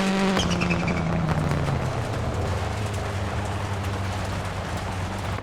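Mitsubishi Lancer Evolution X's turbocharged four-cylinder engine coming off the throttle after the stage finish, its note falling over the first two seconds to a low, steady run as the car rolls to a stop. A high whine falls away about half a second in, and a wide rumble of tyre and road noise runs underneath.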